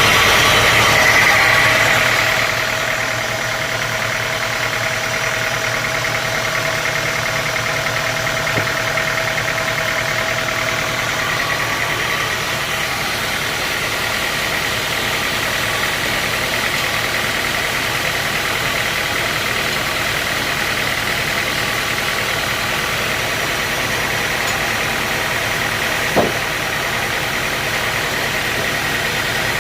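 Sawmill machinery running steadily, a little louder for the first two seconds or so, with one sharp knock near the end.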